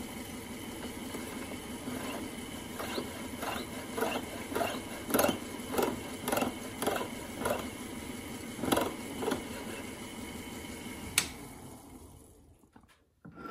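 Watchmaker's lathe running with a steady hum while a jeweller's piercing saw cuts a fine wire held in the lathe, in rasping strokes about two a second. Near the end a sharp click, and the lathe's hum dies away.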